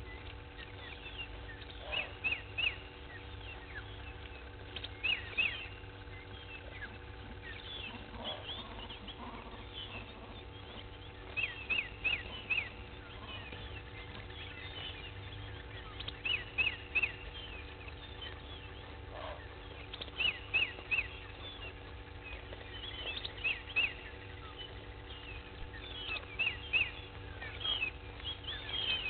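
Wild birds calling in bursts of short, sharp, falling chirps every few seconds, over a steady faint hum.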